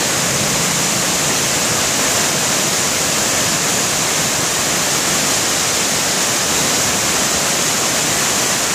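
Rain-swollen creek in flood, muddy water pouring over a rocky drop as a waterfall with a steady, even rushing sound.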